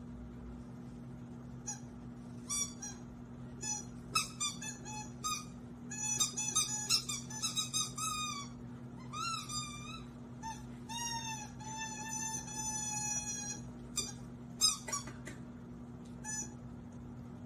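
Squeaky rubber ball being chewed by a corgi: many short squeaks, some bending in pitch, with a few longer drawn-out squeaks past the middle.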